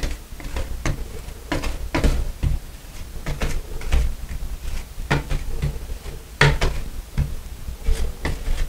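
Putty knife scraping and tapping across glazed shower wall tile, pressing fresh grout into the joints in short, irregular strokes.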